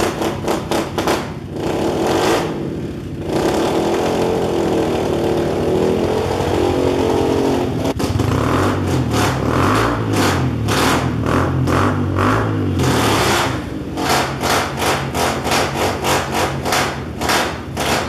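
Honda CRF pit bike's small single-cylinder four-stroke engine, fitted with a Yoshimura exhaust, running and being revved up and down.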